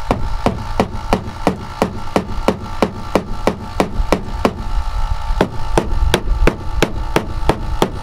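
A mallet tapping rapidly on the steel side panel of a school bus, about three knocks a second, to work out a dent. Under it runs the steady hum of an air compressor.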